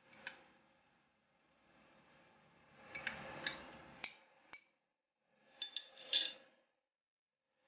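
Dry basil seeds poured into a ceramic bowl: a soft rushing patter with a few light clinks of the container against the china. A short run of sharper clinks follows near the end.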